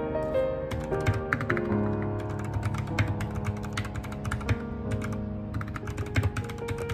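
Fast typing on a compact 60% mechanical keyboard, keys clacking in quick continuous runs starting about a second in, over soft piano music.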